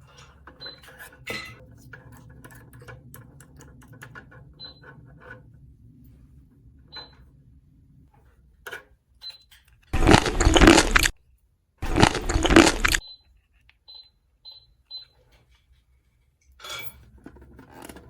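Small plastic toy pieces clicking and clinking as they are handled, then two loud, noisy bursts about a second long each, close together midway through.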